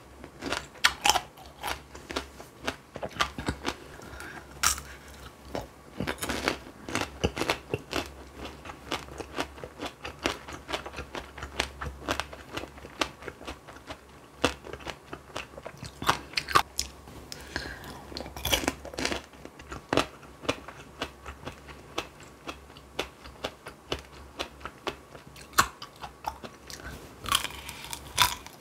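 Close-miked biting and chewing of tanghulu, the hard candied-sugar shell on the fruit cracking between the teeth in many sharp, irregular crunches.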